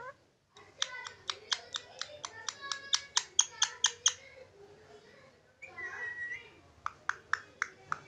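Indian ringneck parakeet making a fast run of sharp clicking chirps, about five a second for about three seconds. Then comes a short warbling call, and a few more clicks near the end.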